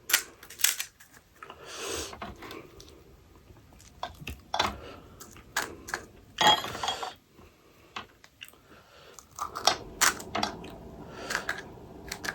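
Close-up eating sounds: pani puri being crunched and chewed, with short sharp clicks and a few longer crunching bursts.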